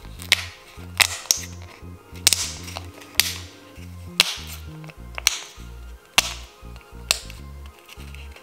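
Clear plastic pill-blister bubbles on a homemade pop-it toy being pressed by fingertips, each press giving a sharp pop, about one a second and sometimes two close together. Background music with a steady bass line plays underneath.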